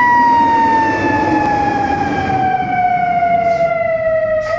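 Fire engine siren wailing: one long tone that slides slowly down in pitch, then turns and starts to rise again at the very end. The truck's low rumble runs underneath.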